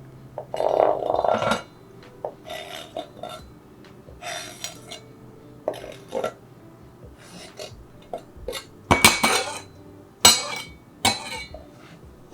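Kitchen dishes and utensils clattering and clinking irregularly as cut food is moved into another container, with the loudest clatters near the end.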